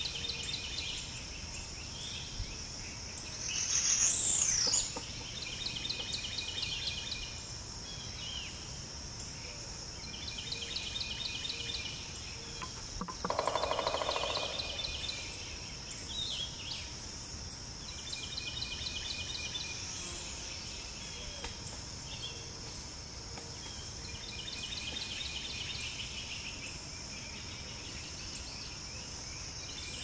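Outdoor nature ambience: a steady high-pitched insect drone, with a bird's short trills repeating every few seconds. A rising and falling call comes about four seconds in, and a louder, lower call about thirteen seconds in.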